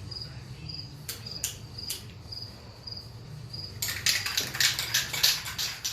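A cricket chirping steadily, a short high chirp about twice a second, over a low hum, with a few sharp clicks. About four seconds in, a dense rapid clicking and rattling starts and covers it.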